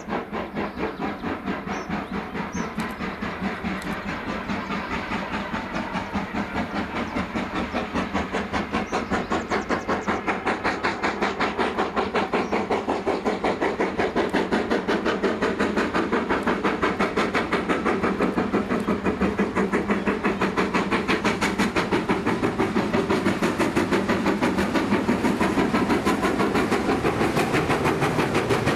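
GWR Manor class two-cylinder steam locomotive working under steam, its exhaust beats coming in a rapid, even rhythm and growing steadily louder as it approaches.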